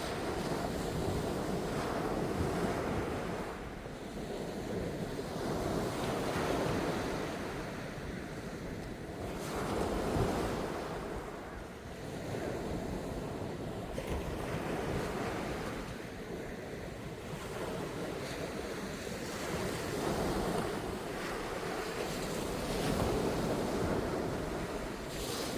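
Sea waves washing onto the shore, the surf swelling and easing about every three to four seconds.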